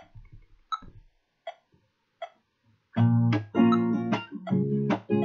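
Four short, evenly spaced clicks, about one every three-quarters of a second, counting in. Then a guitar comes in about three seconds in, strummed in a steady rhythm.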